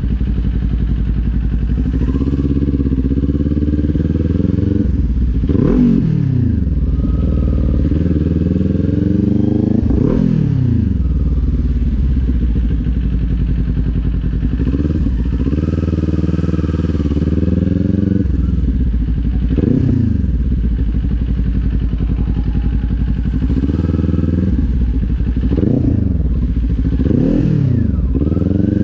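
Kawasaki Z400's parallel-twin engine running while the bike is ridden, heard up close on the bike. Its pitch climbs and falls back several times as it pulls away and eases off, with steadier running between.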